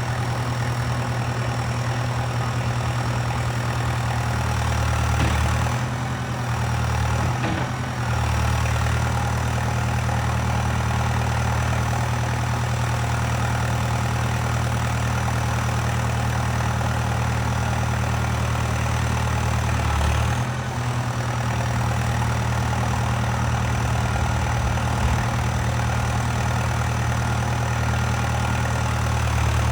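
Valtra 815 tractor backhoe loader's diesel engine running steadily under load. The engine note changes briefly about six to eight seconds in and again about twenty seconds in.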